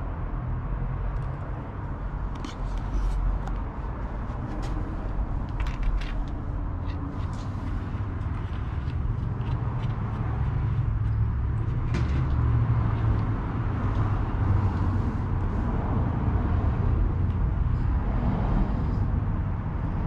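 Steady low outdoor rumble, with scattered light clicks and taps as BMX handlebars are set into the stem clamp and its faceplate and bolts are handled.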